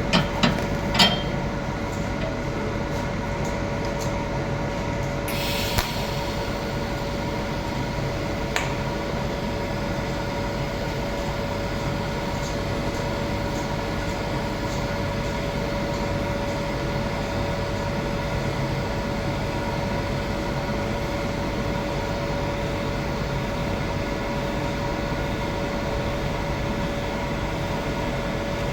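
Steady electric hum of welding equipment with a few sharp clicks near the start; about five seconds in a welding arc strikes and sizzles steadily as the root pass is laid on the pipe joint.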